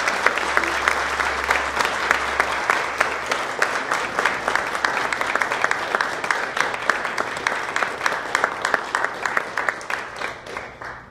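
Audience applauding, a dense steady patter of many hands that thins out and stops near the end.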